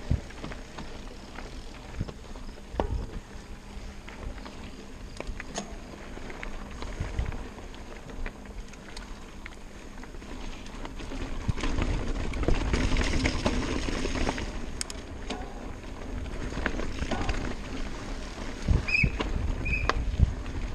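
Mountain bike rolling fast over a rocky gravel track: tyre crunch and chain and frame rattle, with sharp knocks over bumps, growing louder for a few seconds in the middle. Two short high tones sound near the end.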